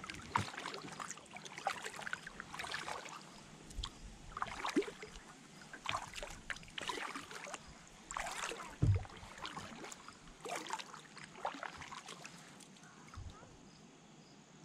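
Kayak paddle blades dipping into lake water, splashing and dripping in a steady rhythm, a stroke every second or two.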